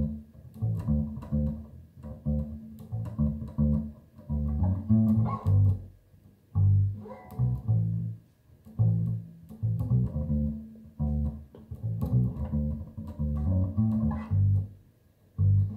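Bass guitar playing a solo bass line of quick plucked notes, broken by a few short pauses.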